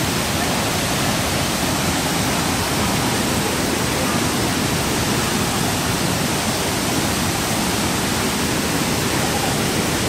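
Large waterfall at full flow: a steady, loud rush of water crashing into its plunge pool.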